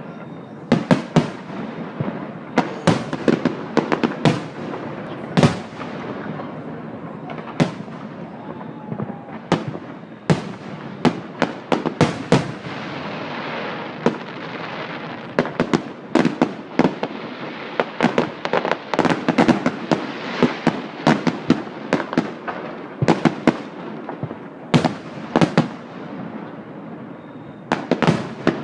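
Fireworks display: aerial shells bursting one after another in irregular volleys, some bangs in quick clusters, over continuous crackling that swells in the middle.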